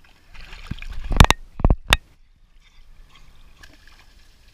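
Pool water splashing and sloshing as dogs swim, building to a few sharp splashes or knocks against the camera about a second in, then cutting off suddenly to faint lapping.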